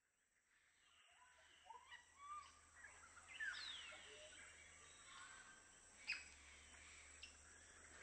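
Faint outdoor ambience with scattered bird chirps and a few falling whistled calls, fading in from silence.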